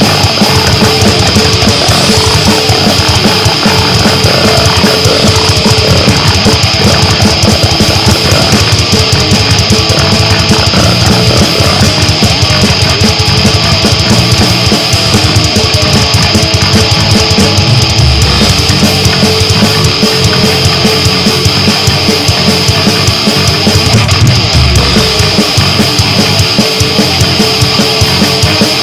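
Loud, harsh goregrind music: distorted guitar and fast drumming in a dense, unbroken wall of sound.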